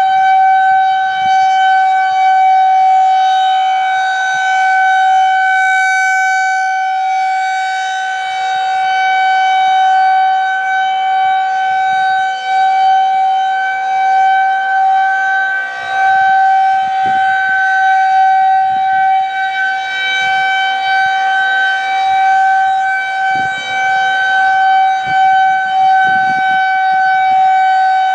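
Federal Signal 2001-130 rotating civil defense siren sounding its Alert signal: one loud, steady tone held without rising or falling, its level swelling and fading slowly as the rotating head sweeps past.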